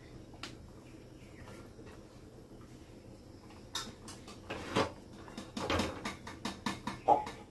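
Metal pots and utensils clinking and knocking on a steel gas stove, a quick run of sharp knocks starting about four seconds in, over a low steady background hiss.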